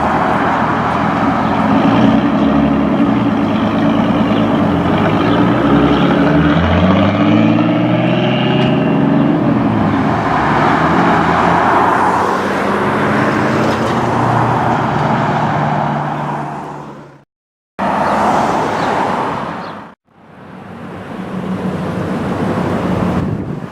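Nissan Z sports car engines running and revving, the pitch climbing as one revs up or pulls away about a third of the way in. The sound fades and cuts out twice near the end as one car gives way to another.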